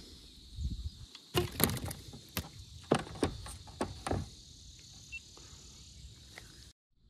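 A crappie being lifted from the water and swung into a boat: a quick run of sharp knocks and slaps, about eight over three seconds, as the fish is landed and handled, then a few lighter taps.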